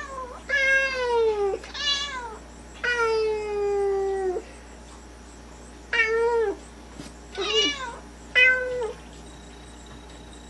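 A cat meowing over and over, about seven meows with short pauses between them; some are drawn out and slide down in pitch.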